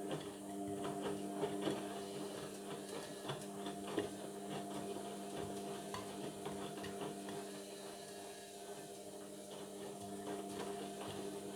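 Indesit washing machine running through its Cotton 60 cycle: a steady motor hum with scattered clicks and knocks from the drum.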